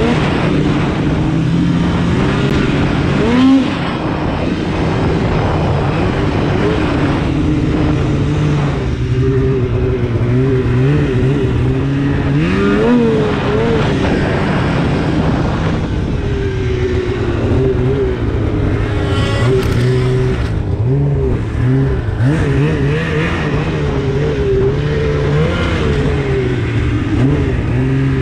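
2016 Polaris RMK 800 snowmobile's two-stroke twin engine, fitted with a Bikeman aftermarket exhaust can, running under throttle while riding. The revs rise and fall over and over, with quick blips about three and a half seconds and thirteen seconds in and a brief drop in revs around twenty seconds in.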